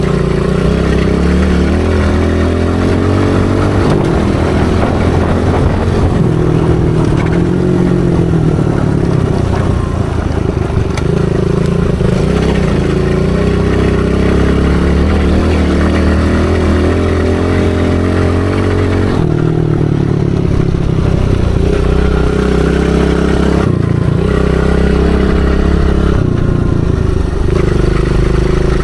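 Small dirt bike's engine running under the rider, its revs rising and falling as the throttle is opened and closed, with a couple of brief drops in revs about two-thirds of the way through.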